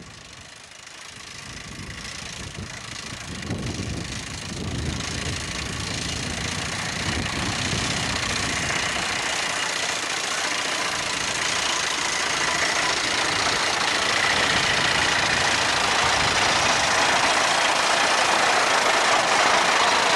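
Horse-drawn reaper cutting standing corn: the continuous clatter of its cutter bar and gearing, growing steadily louder as it comes near.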